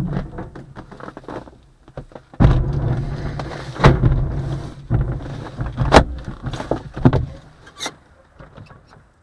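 Twin Astir glider rolling over the ground after landing: a low rumble with sharp knocks and clacks from the airframe that dies away as it comes to a stop. A click near the end as the canopy is unlatched and pushed open.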